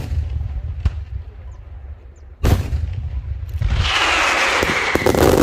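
Daytime aerial fireworks: several sharp shell bursts with low rumbling echo between them. After about three and a half seconds comes a loud hiss with a slowly falling whistle, then a rapid string of cracks near the end.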